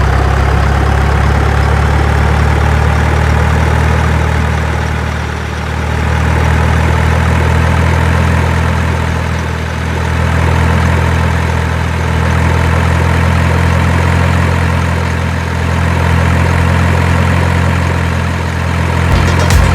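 Heavy engine idling steadily with a low, even drone. The level eases off slightly every four to five seconds.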